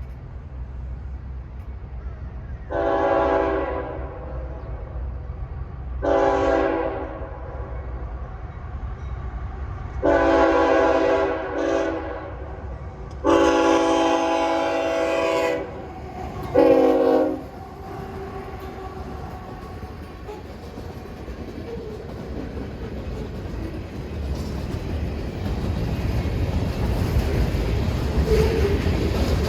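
Diesel locomotive air horn sounding five blasts over about fifteen seconds, the third one briefly broken and the last one short, typical of a train signalling as it approaches a grade crossing. Under the horn is the low rumble of the approaching train, which grows louder near the end with wheels clattering over the rail joints.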